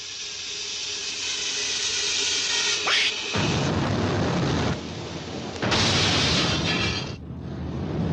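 Cartoon sound effects: a hissing noise swells louder for about three seconds as the giant water-filled bag strains, a quick rising whistle follows, and then the bag bursts with a boom into a loud rush of gushing floodwater that surges twice more, under the cartoon's music score.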